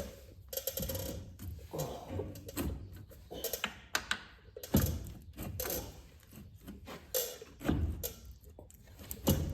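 Irregular metallic clinks and knocks as a bolt and suspension parts are handled and fitted while new bushings and pins go in, with a few heavier knocks about five, eight and nine seconds in.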